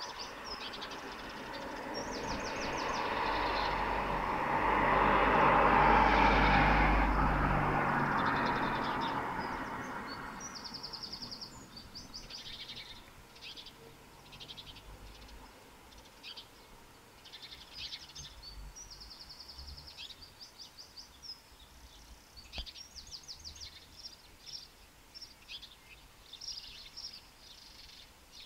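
Birds singing and chirping, with short repeated trills and scattered calls throughout. A passing vehicle rises to a loud peak about six seconds in and fades away by about ten seconds, leaving the birdsong.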